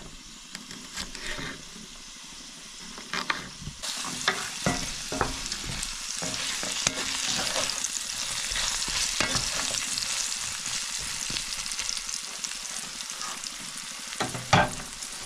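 A few knife strokes on a wooden cutting board, then rabbit and potato chunks sizzling in a cast-iron skillet, which starts about four seconds in, while a wooden spatula stirs and scrapes them. A sharp knock comes near the end.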